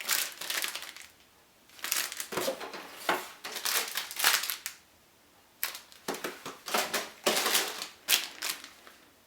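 Packaging rustling and crinkling as items are handled and unwrapped, in three stretches with short pauses about a second in and around five seconds in.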